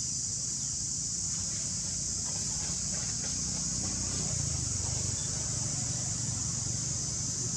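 Steady high-pitched insect drone from the forest canopy, over a continuous low rumble.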